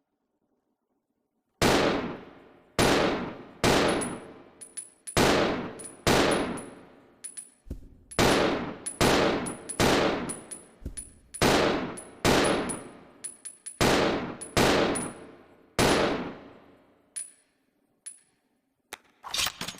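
Handgun sound effect: after a second and a half of silence, a steady run of single gunshots a little under a second apart, each trailing off. Light clicks and high metallic pings sound between the shots. Near the end come a few smaller clicks and two quick shots.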